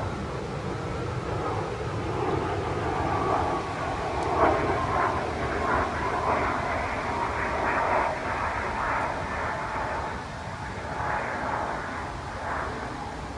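A distant aircraft passing over, its engine drone slowly falling in pitch. Now and then come short scraping strokes of a knife shaving a dried black cherry stick.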